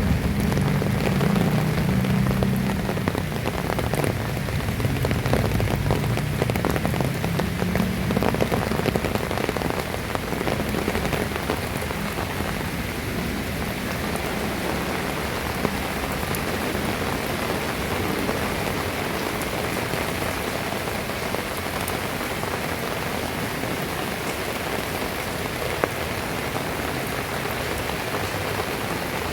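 Heavy rain falling steadily on surfaces, a dense, even patter. A low hum underneath fades away during the first several seconds.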